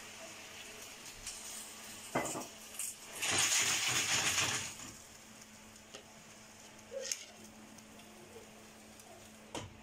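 Pan of clams in white wine shaken on a gas burner: the shells rattle and scrape against the stainless steel pan for about a second and a half, with a few single metallic clinks before and after over a faint steady hiss.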